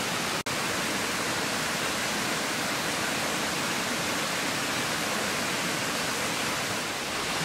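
Steady rushing of a stream, an even noise that cuts out for an instant about half a second in.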